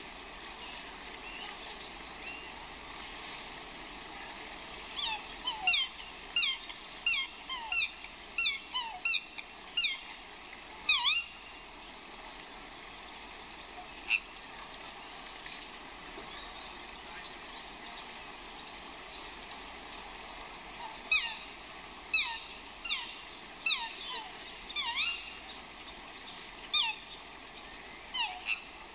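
Swans giving short, high-pitched squealing calls, each falling quickly in pitch, about two a second, in two bouts, the first about five seconds in and the second about twenty seconds in. Under them is a steady hiss of rain.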